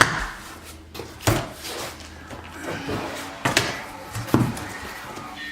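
A projector's box and packing being handled during unboxing: a few sharp knocks and thumps, the loudest right at the start and about a second in, with rustling between.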